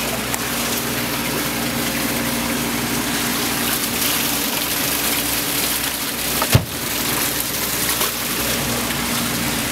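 Steady rush of running water with a low, even hum underneath, and one sharp knock about six and a half seconds in.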